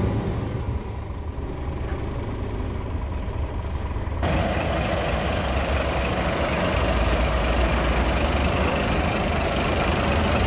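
Scania P380 truck's diesel engine idling, muffled at first as from inside the cab. About four seconds in, it cuts to the engine heard up close under the tilted cab, louder and fuller.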